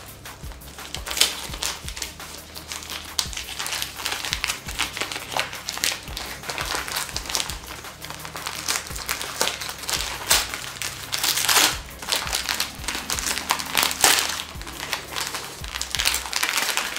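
Patterned gift wrapping crinkling and rustling as hands unwrap a package, with a few louder crackles scattered through.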